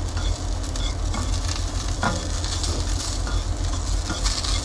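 Sliced onion sizzling in oil in a stainless steel pan on a small gas burner, with a few light taps and scrapes as it is stirred with a knife. A steady low rumble runs underneath.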